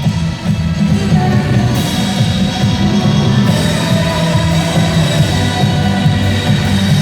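A trot song's backing track playing loudly over a sound system, with a steady beat.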